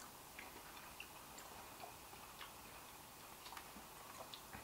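Near silence with faint, irregular small clicks, about eight, from eating ice cream out of a paper tub with a metal spoon.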